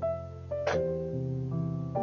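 Background piano music: slow, sustained notes and chords that change every half second or so. A brief sharp sound cuts in about two-thirds of a second in.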